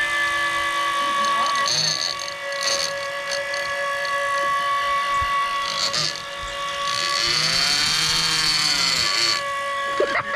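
Hooker Electric motor on a Penn International 80VISW big-game fishing reel running with a steady whine as it winds line in against a dog tugging on the end.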